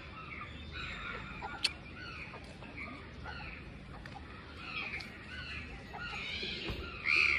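Birds chirping and calling on and off, with one louder call just before the end.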